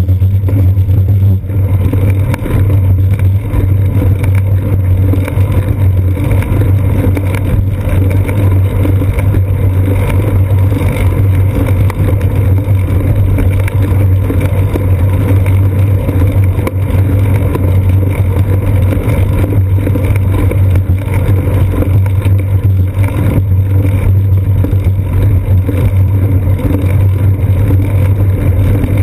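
Steady, loud low rumble of wind and road vibration picked up by a bicycle's seat-post-mounted GoPro Hero 2 while riding along a paved path.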